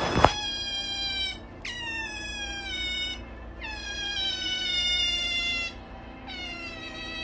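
A domestic cat yowling: long drawn-out meows, one after another, each lasting a second or two and dipping in pitch at the start. A sharp click comes just after the start.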